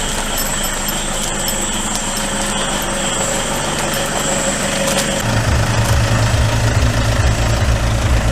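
Car engine idling, its low rumble growing much louder about five seconds in. Until then a steady high chirring of crickets is heard with it.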